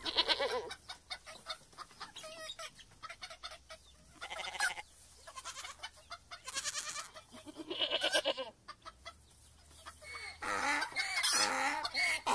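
Farm poultry clucking and calling: many short, irregular clucks, a few louder and longer calls near the middle, and busier calling near the end.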